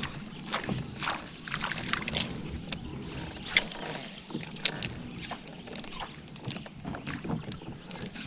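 Kayak on calm water: small splashes and water lapping against the plastic hull, with irregular light knocks and clicks from the boat and gear.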